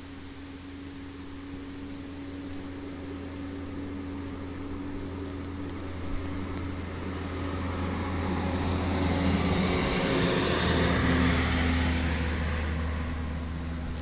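A road vehicle passing by, its tyre and engine noise swelling over several seconds, peaking about ten seconds in and fading away, over a steady low hum.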